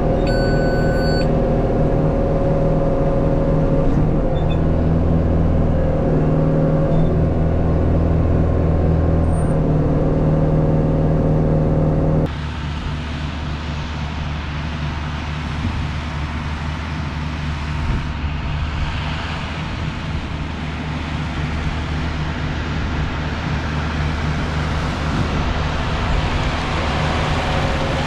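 New Holland tractor's diesel engine running steadily under load inside the cab while pulling a round baler. About twelve seconds in, the sound changes abruptly to the tractor and round baler heard out in the field, noisier and growing louder as they approach.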